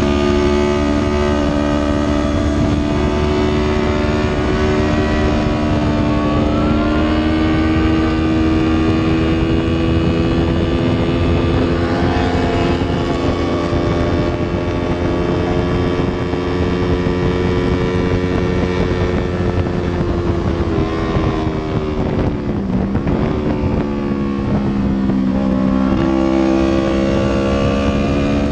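Yamaha R3's 321 cc parallel-twin engine running hard at high revs, heard from onboard with wind rush over it. Its pitch climbs slowly through a long pull, dips sharply for a moment about three quarters of the way through, then settles back up.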